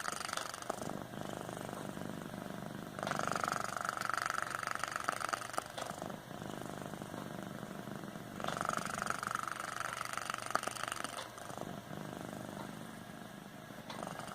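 A sleeping domestic cat snoring: louder, drawn-out snores come about every five and a half seconds, with quieter breathing in between.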